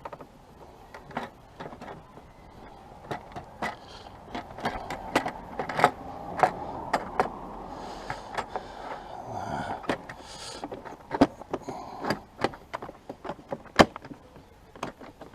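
Plastic body panel and fittings being handled and worked into place: irregular clicks, knocks and taps, with scraping and rubbing through the middle stretch.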